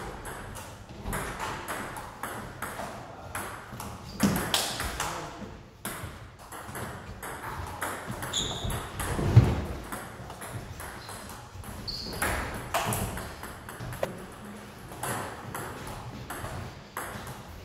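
Table tennis rally: the plastic ball clicking off the paddles and bouncing on the table in quick, irregular ticks. There is a heavier low thump about halfway through.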